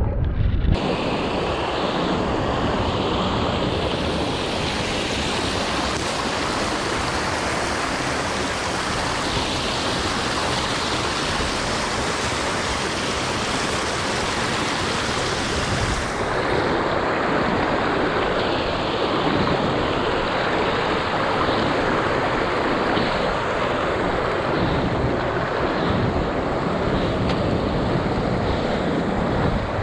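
Rushing water of a small mountain burn tumbling over rocks in little cascades, mixed with wind buffeting the microphone. About halfway through the sound changes as the high hiss drops away.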